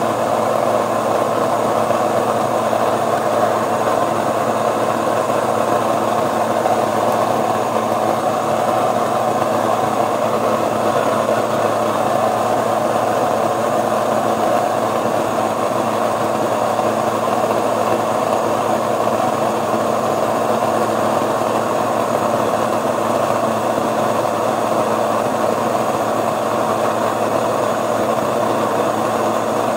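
Electric stone grain mill running steadily while it grinds wheat berries into flour, a loud, even motor-and-grinding noise. A stand mixer is kneading dough alongside.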